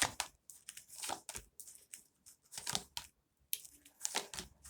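Tarot cards being handled, a string of short, crisp rustles and snaps at irregular intervals.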